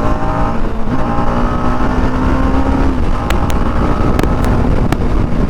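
TVS Apache RR 310's single-cylinder engine running through its stock exhaust while riding. The revs drop about half a second in, then it runs steadily, with a few sharp clicks in the second half.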